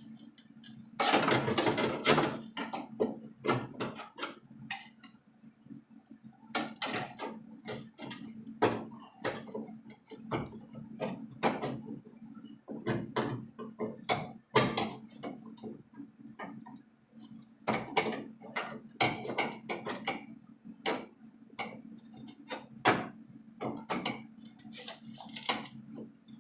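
Sheet-metal patch panel being tack-welded into a car body: a welder's arc crackling in many short bursts at irregular intervals over a steady low hum.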